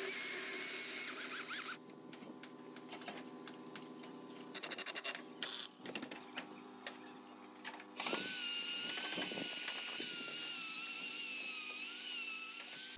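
Chainsaw running in a cut through a wooden post, stopping about two seconds in. This is followed by a few seconds of scattered clicks and knocks, and then, from about eight seconds in, a corded router runs with a steady, slightly wavering high whine as it cuts across the post's end grain.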